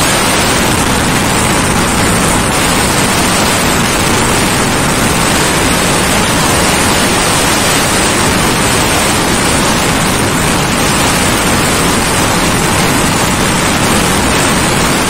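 Loud, steady wind rush over the microphone of a motorcycle riding at about 160 km/h, an even hiss with no engine note standing out.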